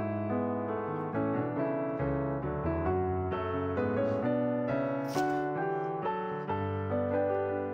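Background piano music playing a flowing melody of changing notes. Two faint knife strokes on a wooden cutting board come about four and five seconds in.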